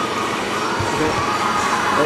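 Steady factory-floor noise, an even machine hiss and hum with a faint crowd-like murmur and a couple of low knocks about a second in.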